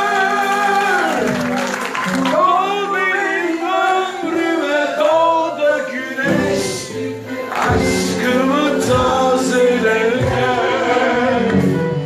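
Several voices singing together over musical accompaniment, holding long notes.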